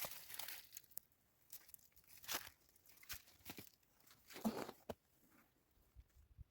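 Faint rustling and crunching handling noises: a dense flurry of rustling that dies away in the first second, then a string of short, separate crunches, one of them fuller and deeper about four and a half seconds in.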